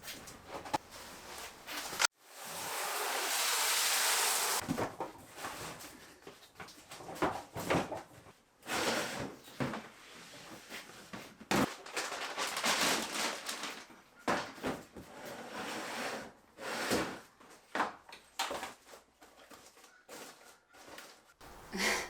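Household items, boxes and bins being handled and moved during unpacking and organizing: irregular knocks, scrapes, rustles and drawer- or lid-like clatters. About two seconds in there is a louder rushing noise lasting about two seconds.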